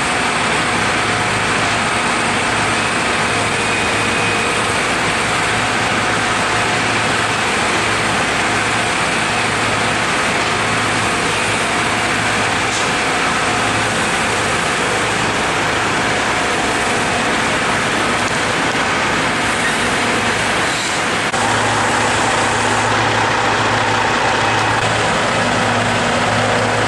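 Logging truck's diesel engine running with a steady low hum over a constant wash of road noise. About three-quarters of the way through the sound dips briefly, then comes back a little louder with a new, higher-pitched hum on top.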